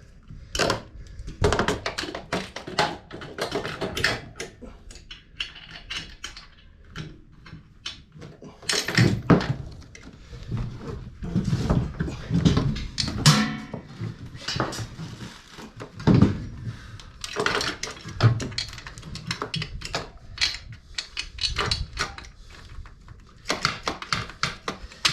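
Irregular metallic clunks, knocks and rattles as a dirt-bike part is lifted and worked into place on the frame by hand, with parts and tools clattering against each other.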